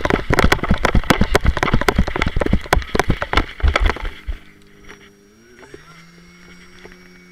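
A firefighter's running footsteps on grass, heard through a helmet-mounted camera as a rapid run of thuds and knocks that stops about four seconds in. After that a steady low hum with several pitches remains, shifting in pitch once.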